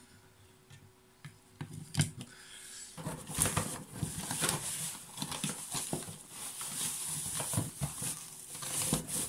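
Wiping and rubbing the dust off a small portable speaker-radio's casing: a few light taps, then from about three seconds in a steady scratchy rubbing mixed with small clicks and knocks of handling.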